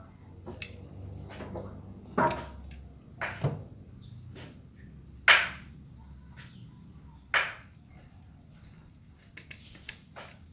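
A cat and kitten eating rice from a metal plate: quiet clicks of eating, broken by four louder knocks and clinks of the plate, the loudest about halfway through.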